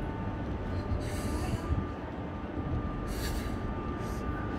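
Steady low rumble of city street background noise, with two short hisses about a second and three seconds in.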